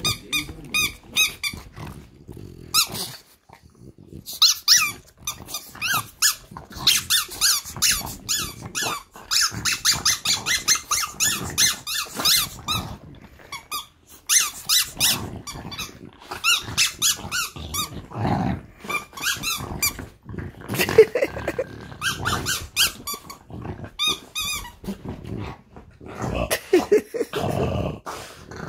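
Two French bulldogs play-fighting, with rapid runs of short high-pitched squeaks and yips and low growling, the growls heavier in the second half.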